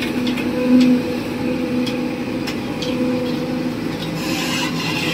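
Excavator at work: a steady engine drone with a wavering hum, over scraping and a few sharp clicks, the scraping growing louder near the end.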